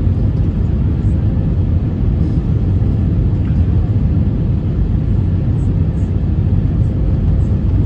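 Jet airliner cabin noise on approach for landing: a steady, loud low rumble of engines and rushing air, heard from a window seat inside the cabin.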